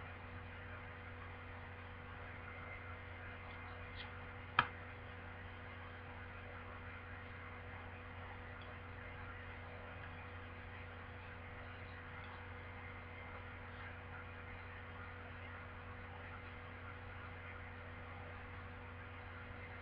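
Faint room tone: a steady electrical hum over hiss, with one sharp click about four and a half seconds in.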